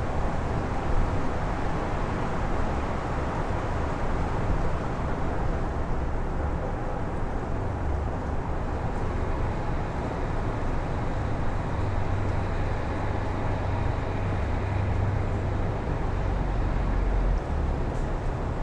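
Town ambience on a very windy day: a steady rush of wind with a low, uneven rumble of gusts that swells about two-thirds of the way through.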